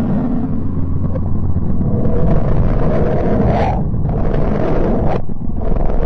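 Space-probe data from NASA's MESSENGER mission turned into sound as the 'sound of Mercury': a deep, steady rumbling drone with a low hum underneath. A hiss swells up to a rising whoosh about three and a half seconds in, and the sound breaks off sharply about five seconds in before the rumble returns.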